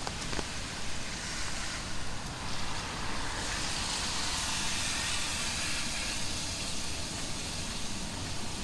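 Heavy rain falling steadily. About three seconds in, a vehicle's tyres hiss on the wet road as it passes, swelling and then easing off.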